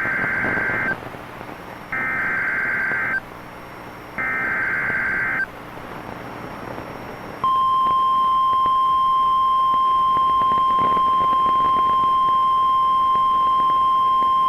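Emergency Alert System weather radio alert: three bursts of SAME digital header data tones, about a second each, marking the start of a severe thunderstorm warning. About seven seconds in, a single steady 1050 Hz weather radio warning alarm tone begins and holds. There is light radio hiss between the bursts.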